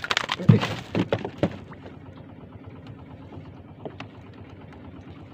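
A freshly landed wahoo knocking and slapping against the wooden hull of a small boat as it is swung aboard: a burst of heavy thuds in the first second and a half, then only a faint steady background with one small click.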